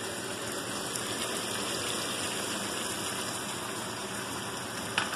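Chicken simmering in hot oil in a nonstick pan with a little water just added, giving a steady sizzling, bubbling hiss. A light tap sounds near the end.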